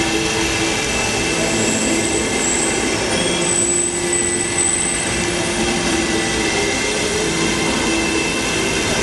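Projection-show soundtrack of sound effects: a steady, dense rushing noise with a few faint held tones, one high and one lower, and no beat or melody.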